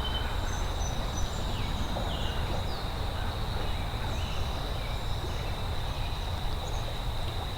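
Outdoor insect drone: one steady high thin tone over a low steady rumble, with a few faint short chirps in the first couple of seconds.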